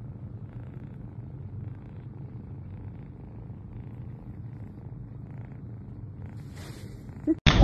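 Black kitten purring, a steady low rumble while it is held and stroked. Right at the end a sudden, much louder noise breaks in.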